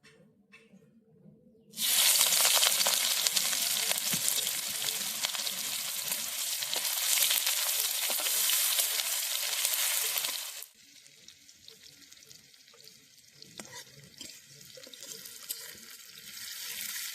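Chopped onion tipped into hot oil in a cooking pan: a sudden loud sizzle about two seconds in that holds for some eight seconds, then drops off to a quieter sizzle that builds again near the end.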